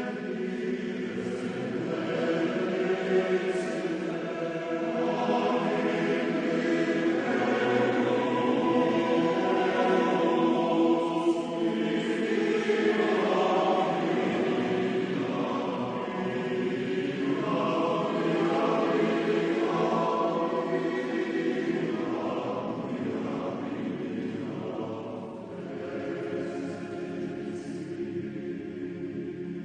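Men's chorus singing sustained harmonised chords as background music, fading out at the end.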